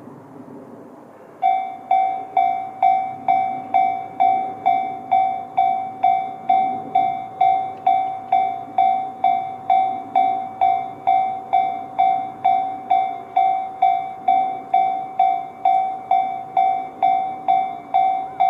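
Japanese railway level-crossing warning bell, the electronic Tobu 'C' tone sounding from both sides of the crossing, starts about a second and a half in. It rings steadily at about one and a half strikes a second, each strike a bright ding that fades quickly. It is the signal that the crossing has activated for an approaching train.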